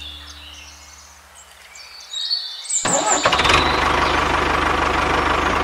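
A tractor engine starts about three seconds in and runs with a fast, dense rattle. Faint music fades out before it.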